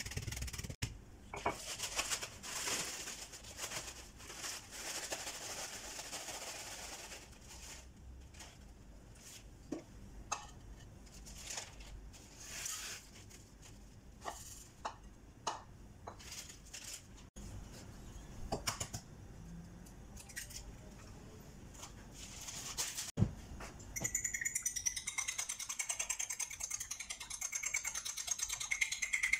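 A rolling pin pressing and crushing crisp crumbs in a plastic zip-lock bag, a crinkling, crunching noise, followed by scattered light clicks. About 24 seconds in, a fork starts beating eggs against a ceramic plate in fast, steady clicks.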